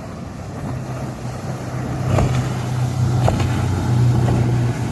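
Motorboat engine running at a steady low drone that grows louder as the boat comes closer through the inlet. Two short, sharp knocks come about two and three seconds in.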